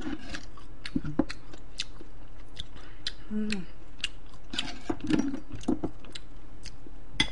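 Close-miked eating sounds: chewing with scattered sharp clicks of mouth and chopsticks, and a short hum a little over three seconds in.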